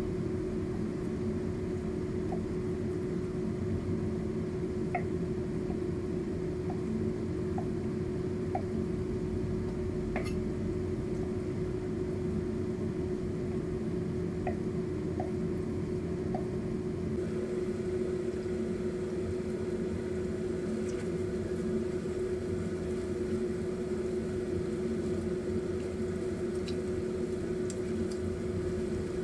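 Kitchen knife cutting a block of luncheon meat into cubes on a wooden chopping board: light knocks about once a second through the first half, over a steady low machine hum that runs throughout.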